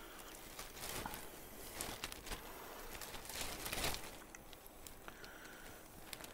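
Black plastic garbage-bag hood crinkling and rustling, with the strongest rustles about one, two and three to four seconds in. Breathing can be heard inside the hood.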